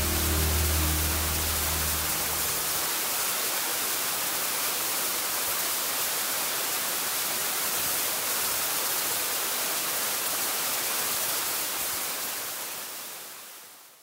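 Oshita Waterfall, an 18 m fall, pouring into its plunge pool with a steady, dense rush of falling water. A few low music notes die away in the first two seconds or so, and the whole sound fades out over the last couple of seconds.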